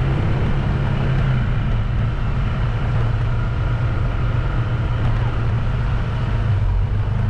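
Vehicle engine running steadily while travelling at an even speed, a constant low hum under steady road and wind noise.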